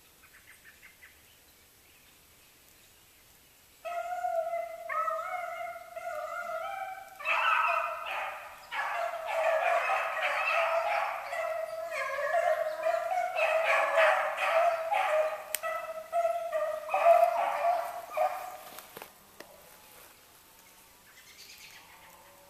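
A pack of beagles baying while running a rabbit: one hound opens about four seconds in, several more join a few seconds later in an overlapping chorus, and the voices die away near the end.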